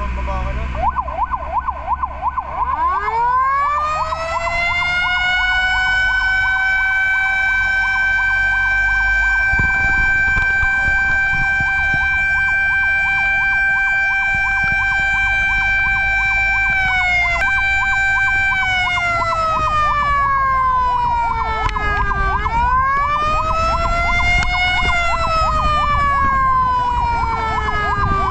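Fire truck sirens on an emergency run. A fast yelping siren sounds throughout, and about two seconds in a second siren winds up into a long steady wail. That wail falls, holds, then dips and rises again in slow sweeps near the end, over a low engine rumble.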